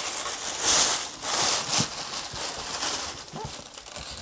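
Tissue paper rustling and crinkling in several bursts as it is pulled back and a cardboard box is lifted out of it.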